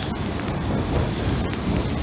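Wind buffeting the microphone over the steady rush of rough surf breaking on the beach.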